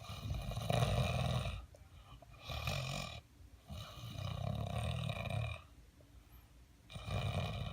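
A person snoring: about four long snores, each a second or two, with short pauses between them.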